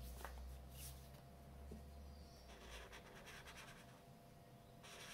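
Faint scratching of a marker's felt nib across paper in a few short strokes.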